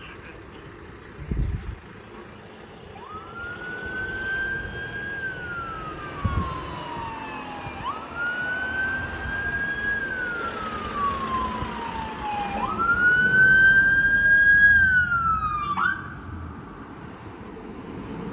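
Emergency vehicle siren wailing in three slow cycles. Each rises quickly, then falls away over about five seconds, and the third is the loudest. It ends in a short chirp and cuts off suddenly. A brief thump comes about a second in.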